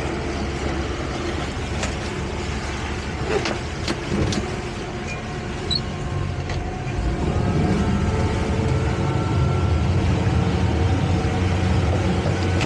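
Twin Suzuki outboard motors running at idle with a few light knocks, then throttling up about seven seconds in to a louder steady drone as the boat gets underway.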